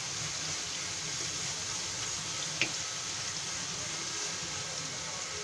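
Sliced onions sizzling in hot oil in a nonstick frying pan as they are stirred and fried toward brown, a steady frying hiss. One sharp tap about two and a half seconds in.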